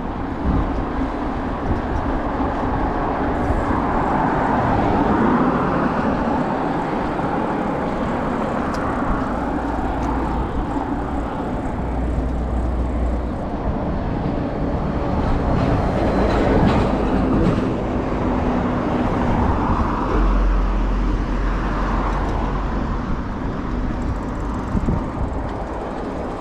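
Bicycle riding over paving slabs: steady tyre-rolling and rattling noise, with wind rumbling on the microphone in gusts and short knocks as the wheels cross the joints between slabs.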